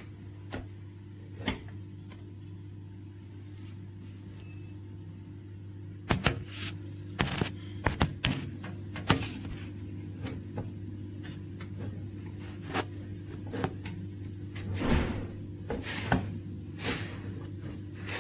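Knocks and clicks of a PC case being handled, its panels and parts opened and shut, in a quick run from about six seconds in. A steady low hum sounds underneath throughout.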